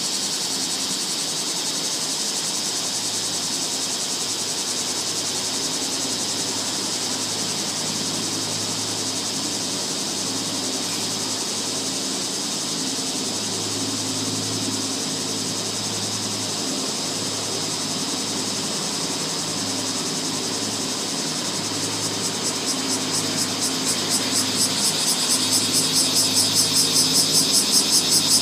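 Cicadas calling in a steady, high-pitched chorus. From about two-thirds of the way in, a pulsing call of about four beats a second builds up and grows louder toward the end.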